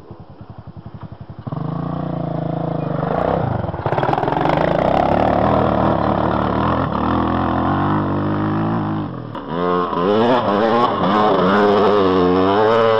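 ATV engine revving hard while the quad spins its wheels in a powerslide on loose gravel. It starts low and pulsing, jumps to high revs about a second and a half in, dips briefly near nine seconds, then surges up and down quickly as the throttle is worked.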